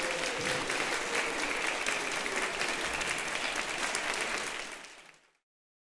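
Audience applauding with dense, steady clapping, which fades away to silence near the end.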